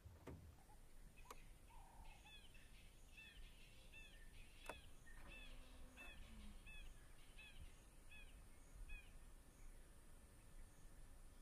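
A bird calling a short, repeated note about twice a second, a dozen times, faint over low outdoor background noise, with two sharp clicks.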